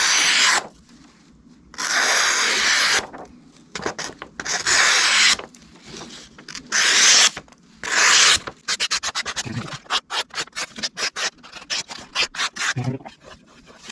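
Knife blade drawn across a sharpening surface: about six long, separate strokes, then a quick run of short back-and-forth strokes, about six a second, near the end.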